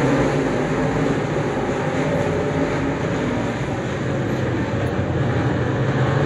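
Street stock race car's engine running steadily at speed, with a slight dip in level about four seconds in.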